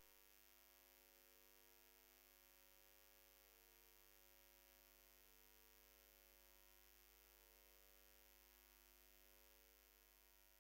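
Near silence: a faint, steady electrical hum, fading out near the end.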